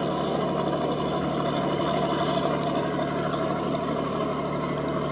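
Boat engine running steadily under way, with the rush of water along the hull and wake.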